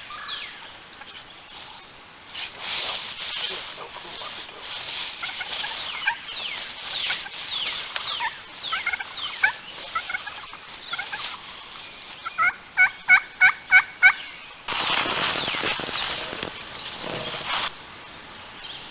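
Wild turkey calling: a run of six yelps about two-thirds of the way through, then a loud gobble lasting about three seconds. Small birds chirp in short falling notes through the first half.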